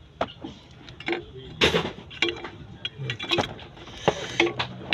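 Repeated sharp metallic clicks and clinks at irregular intervals, with a louder clatter a little under two seconds in.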